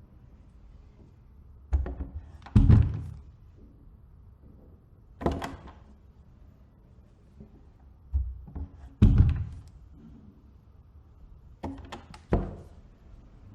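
A door being opened, four times over. Each time there is a short rattle of latch clicks and a heavier thump, the loudest thumps coming near the start and in the middle.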